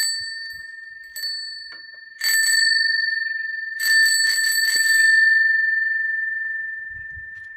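Repaired bicycle bell being rung: a single ding, then a short rapid trill about two seconds in and a longer trill about four seconds in. Its clear ringing tone fades slowly afterwards.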